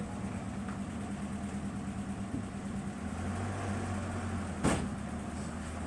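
Engine of a small loaded cargo vehicle running steadily as it pulls away, its low hum growing a little fuller about halfway through. A single sharp knock stands out about three-quarters of the way through.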